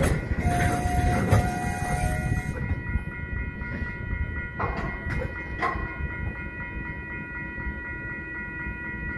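Freight train tank car rolling slowly with a steady low rumble. Wheel squeal is heard in the first couple of seconds, then two sharp metal clanks about halfway through.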